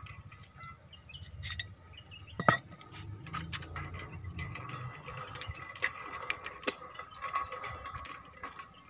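Scattered light clicks and taps of metal pump fittings and hand tools being handled, irregular rather than rhythmic, over a faint steady hum.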